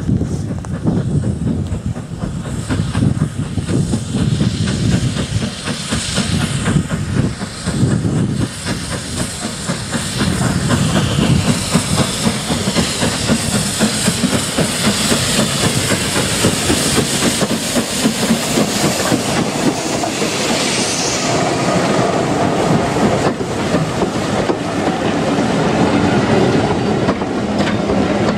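LNER B12 4-6-0 steam locomotive hauling a passenger train, approaching and growing louder as it draws near. Near the end its coaches roll past close by, with a clickety-clack of wheels over the rail joints.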